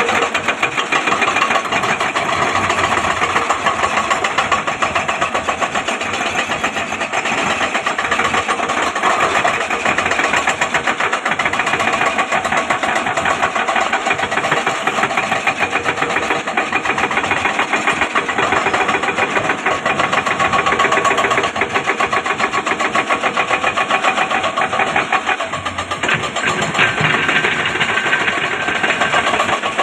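Excavator's diesel engine running steadily with a rapid, even pulse; a higher steady tone joins near the end.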